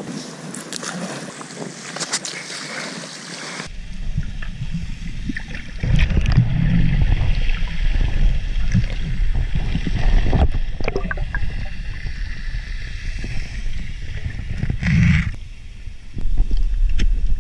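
Sea water and wind hiss against an action camera for the first few seconds, then the camera goes under and the sound turns to a muffled underwater rumble, with sharp knocks and crackles on the camera's waterproof housing.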